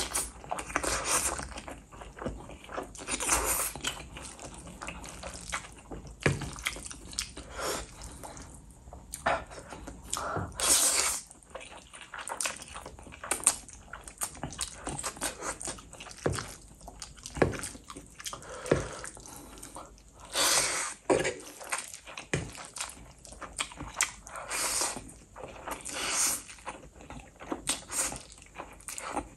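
Close-miked eating of instant noodles: several loud slurps every few seconds, between them wet chewing and small smacking clicks.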